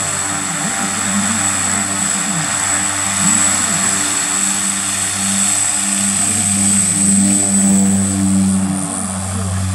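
Twin Turbomeca Astazou turboprop engines of an FMA IA-58 Pucará running on the ground: a steady propeller drone with a high turbine whine over it, growing a little louder in the second half.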